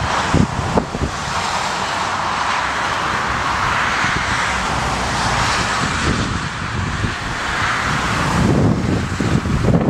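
Wind buffeting the microphone in gusts over the steady rushing hiss of a twin-engine jet airliner, an Airbus A330, landing in a strong crosswind and touching down.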